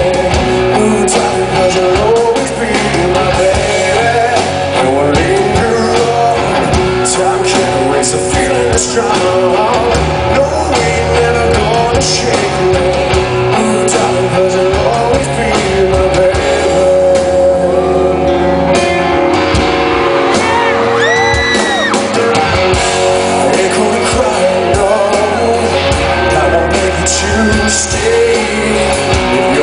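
Live rock band playing a slow rock song: singing over electric guitars and drums, steady and loud in a large hall.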